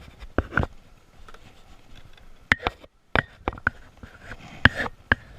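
Irregular sharp clicks and rustles of a spinner lure's hook being worked free from a snag in a fishing bag.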